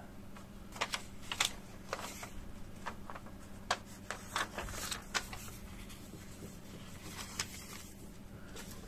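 Thin paper leaflet rustling and crackling as it is handled and folded, with a string of sharp crackles in the first half that thin out to quieter handling in the second half. A faint steady low hum runs underneath.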